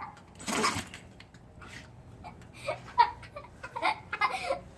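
People laughing and giggling in short, broken bursts, with a louder burst about half a second in and a few quick giggles in the second half.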